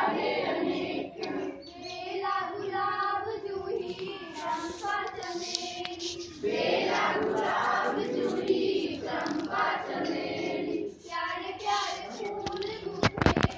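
Group of schoolchildren singing a school assembly prayer together in unison, with a few sharp knocks near the end.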